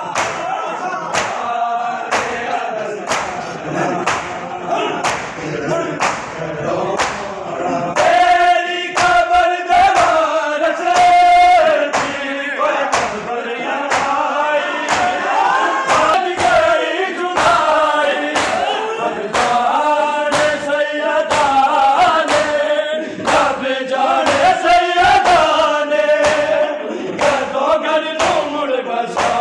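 A crowd of men chanting a mourning lament (noha) together, with a sharp slapping beat about once a second from hands striking bare chests in matam.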